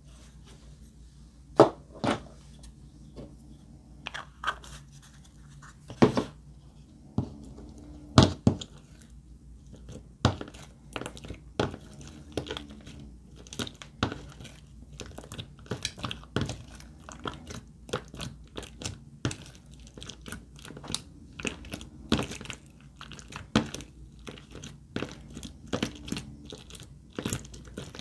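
Slime being squeezed, pressed and folded by hand in a plastic tub, giving irregular sharp clicks and pops as trapped air bursts out. The pops are sparse at first and come thick and fast from about ten seconds in.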